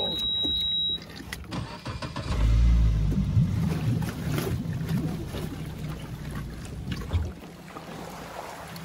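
A small boat's motor runs low for about five seconds, starting about two seconds in and dropping away near the end. A steady high beep sounds during the first second.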